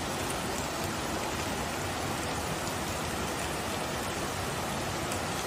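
Steady rushing of a swollen, fast-flowing flood river.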